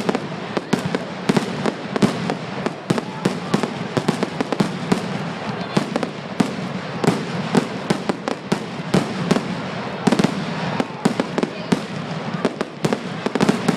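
Fireworks going off in a dense, irregular run of sharp bangs and crackles, several a second, over a continuous crackling haze.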